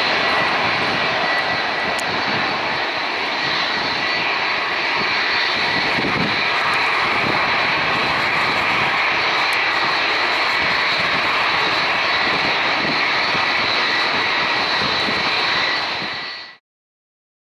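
Boeing 737-700's CFM56-7B jet engines running loud as the airliner touches down and rolls out along the runway, a steady high whine over the jet noise. The sound fades out quickly near the end.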